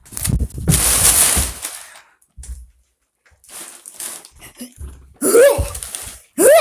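Crumpled brown packing paper rustling and crinkling in a cardboard box as a cat moves about in it, loudest in the first two seconds. Near the end come two brief vocal sounds that slide in pitch.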